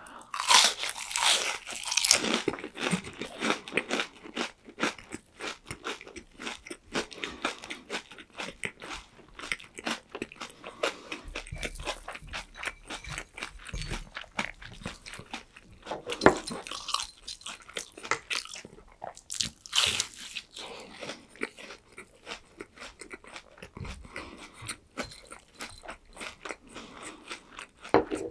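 Close-miked crunching and chewing of crispy fried breaded pork cutlet (tonkatsu): many crackly chews in quick succession, with louder crunching bites about a second in, around the middle and again a few seconds later.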